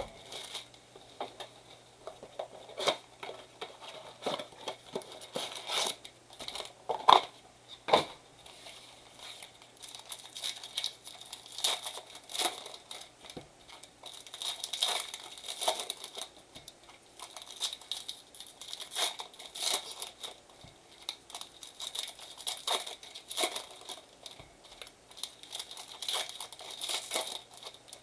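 Baseball card packs from a blaster box being torn open, their wrappers crinkling and crackling, with scattered sharp clicks of handling throughout.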